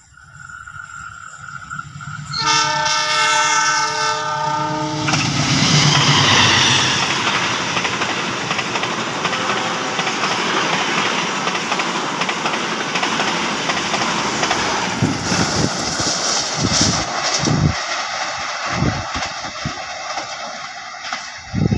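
A double-headed diesel passenger train: the leading locomotive's air horn sounds one blast of about two and a half seconds as the train approaches. Then comes the heavy rumble and rush of the locomotives and coaches passing close by, and from about two-thirds of the way in, rhythmic wheel clacks over rail joints as the last coaches roll past.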